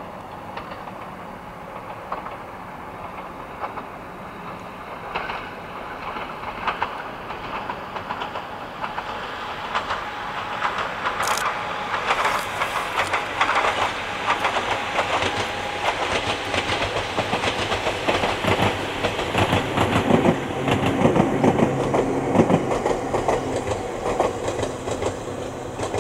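Ohmi Railway two-car electric train (set 809F) passing: its wheels clatter rhythmically over the rail joints, growing louder from about eight seconds in, loudest through the middle and later part, then fading near the end.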